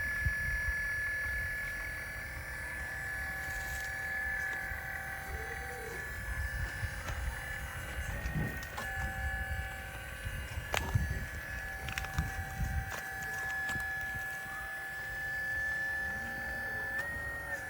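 A 1/12-scale PC360 RC hydraulic excavator's brushless pump motor running with a steady high whine that briefly rises in pitch twice as the hydraulics take load, with a second fainter tone coming and going and a few sharp knocks of the bucket working the dirt.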